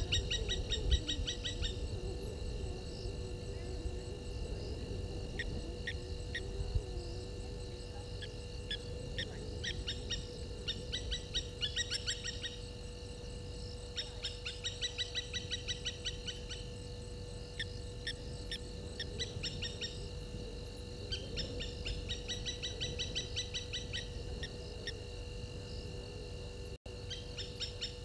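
Night-time chorus of calling frogs and insects: trains of rapid high-pitched clicking calls, each lasting a second or two and repeating again and again, over a steady high-pitched whine and a low rumble.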